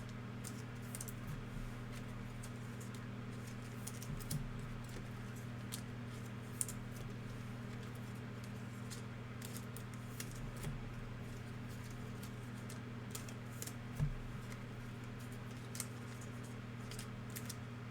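Light clicks, ticks and rustles of trading cards and foil pack wrappers being handled and flipped, with a few soft knocks, over a steady low electrical hum.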